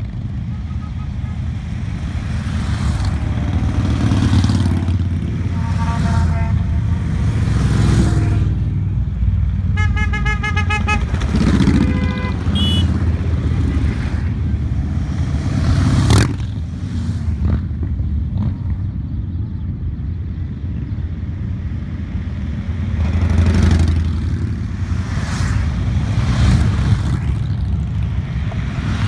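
A procession of cruiser motorcycles riding past one after another, engines running with a steady low rumble that swells as each bike goes by. A short horn note sounds about ten seconds in, and a single sharp pop comes about sixteen seconds in.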